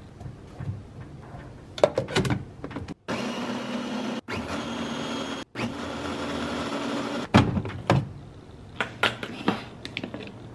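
Babymoov Nutribaby+ baby food maker's blender running for about four seconds, puréeing blueberries and banana, with two brief breaks. Plastic clicks and knocks of the jar and lid come before and after.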